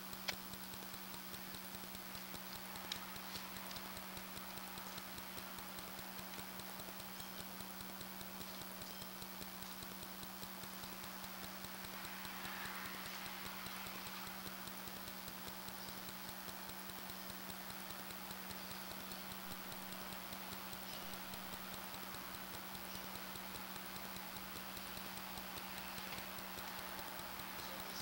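Steady low electrical hum under a faint hiss, with a few faint clicks, one at the start and one about three seconds in.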